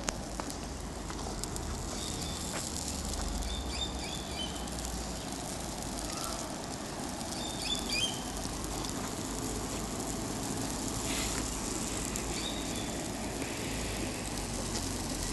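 Drifts of poplar seed fluff burning across the ground, the flames giving a steady crackle. Birds chirp briefly a few times.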